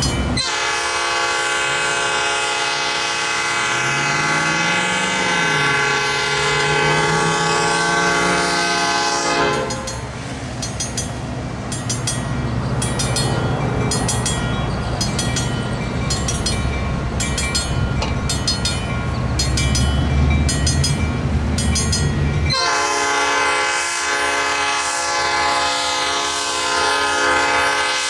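Train air horn sounding a long, chord-like blast for about the first nine seconds and again from about 22 seconds in. Between the blasts, a low rumble and the crossing's mechanical bell striking at a steady, regular rhythm.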